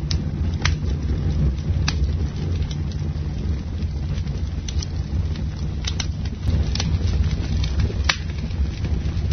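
Wood campfire burning: a steady low rumble of flames with scattered sharp crackles and pops from the burning wood, the loudest pop about eight seconds in.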